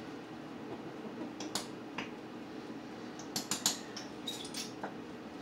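Light clicks and clinks of cookware and utensils at a stovetop skillet, scattered over a few seconds and loudest in a quick cluster a little past the middle, over a steady low hum.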